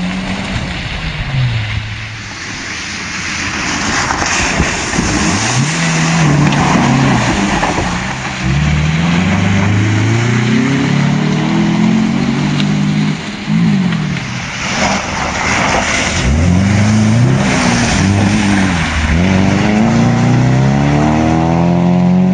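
Rally cars at full throttle on a wet gravel stage, engines revving hard and rising and falling in pitch over and over with gear changes and lifts off the throttle. Bursts of rushing noise come as the tyres throw up gravel and water.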